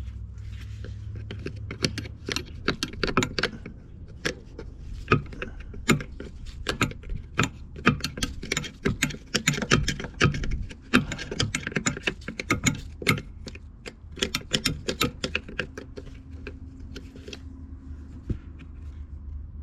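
Irregular metallic clicking and clinking of hand tools and small metal parts being handled, in quick clusters, over a low steady hum.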